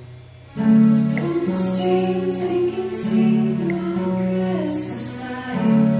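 Background music with guitar, which turns much louder and fuller about half a second in.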